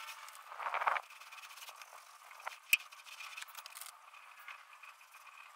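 A short scraping rustle about a second in, then one sharp click a little later, from handling a foam paint roller.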